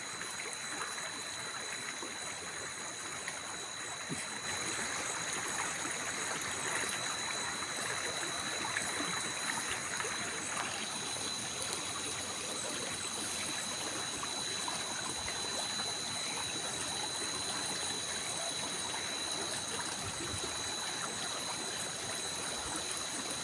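Water flowing and trickling steadily, with thin, steady high-pitched tones running over it.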